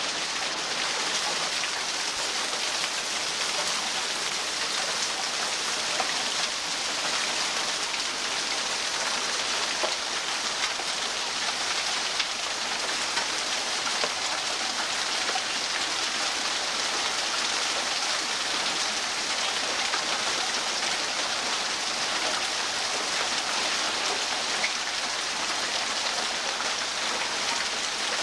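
Steady rain falling, an even hiss with scattered faint taps of drops hitting surfaces.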